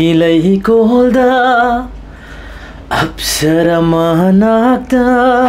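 A man singing unaccompanied, long drawn-out notes with a wavering vibrato, in two phrases with a pause for breath about halfway through.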